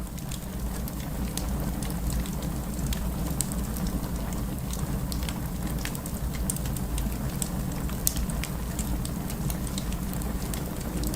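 Wood fire burning in a fireplace: irregular sharp crackles and pops over a steady low rush, with one louder pop about eight seconds in.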